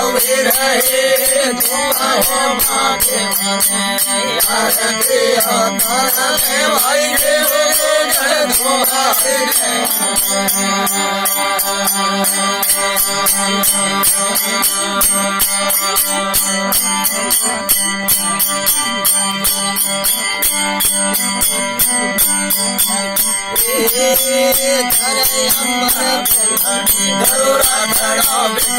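Rajasthani folk devotional music: a steady drone under fast, even rattling percussion. A wavering melody line rises over it during the first third and returns near the end.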